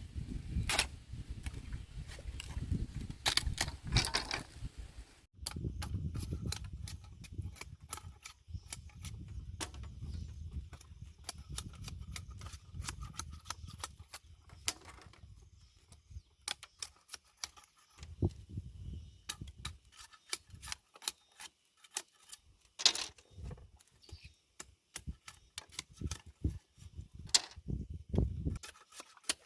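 Irregular sharp clicks and knocks, with a low rumble under them for the first several seconds, then sparser taps.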